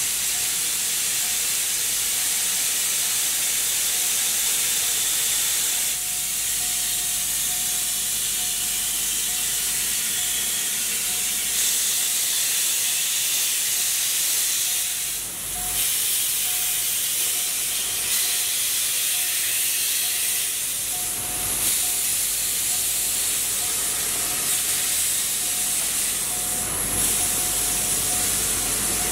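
Steam locomotive venting steam: a loud, steady hiss that dips briefly about fifteen seconds in.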